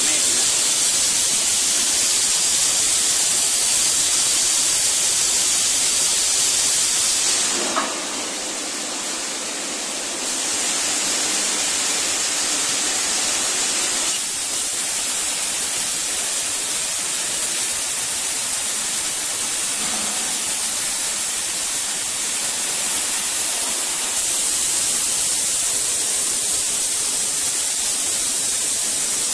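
A 1250-ton cold chamber die casting machine running, giving a steady hiss. About eight seconds in there is a click, and the hiss drops to a quieter level for a couple of seconds.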